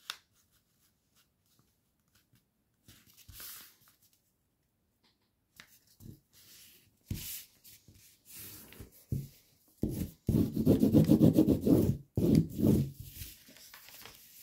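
Sheet of paper rustling and rubbing under the hands as it is folded and creased. The loudest part is about two seconds of hard rubbing, about ten seconds in.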